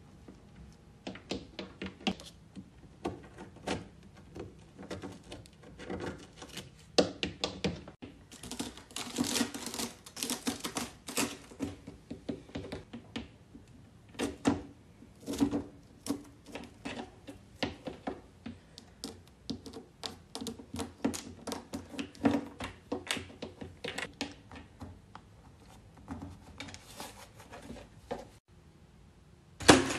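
Crunchy snack foods being pressed and crushed with fingers: a long irregular run of crisp crackles and clicks, denser in a few spells, quieter near the end.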